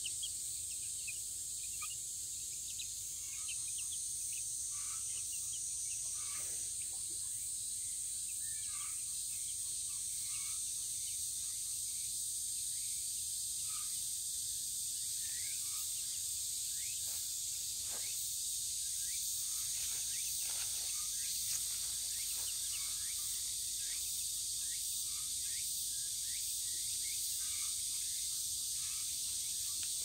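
Cicadas giving a steady high-pitched drone, with scattered short peeps from chicks foraging in the grass.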